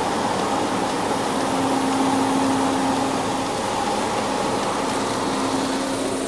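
Drive-through car wash spraying water over a minivan, heard from inside the van: a steady hiss of spray on the body and glass, with a steady machine hum underneath.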